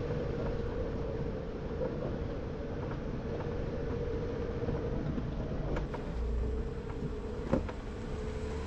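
Jeep engine running steadily with a continuous whining tone over its rumble, and a couple of short knocks, the loudest about seven and a half seconds in.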